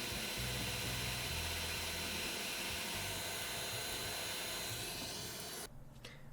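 Steady airy hiss with a faint high whine in it, cutting off abruptly near the end.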